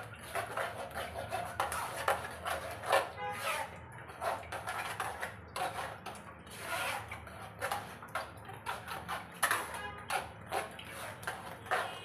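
A hand squeezing and rubbing wet, ground ash gourd pulp against a stainless steel mesh strainer to press out the juice: an irregular run of short squelching, rubbing sounds, several a second.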